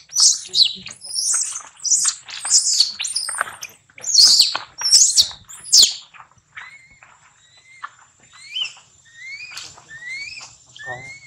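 Macaque screaming in loud, shrill, high-pitched cries that repeat about twice a second, then giving way about six seconds in to quieter, short rising squeaks about once a second.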